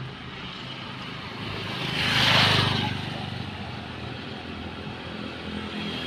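Beach ambience: a steady low motor hum under a rushing noise that swells to its loudest about two seconds in, then fades back.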